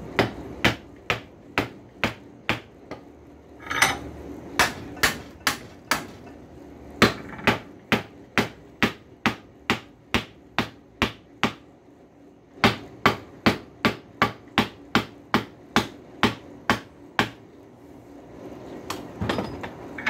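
Steady hammer blows, about two to three a second in three runs with short pauses, driving a handle onto the tang of a coil-spring screwdriver, done with care so the handle doesn't crack.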